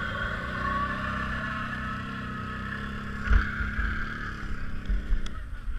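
Off-road vehicle engine running steadily, with a single knock about three seconds in; the engine sound drops away near the end.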